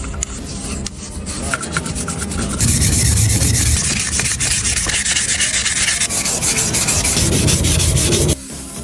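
Abrasive rubbing, like sanding. It gets louder and hissier about a third of the way in, then stops suddenly near the end.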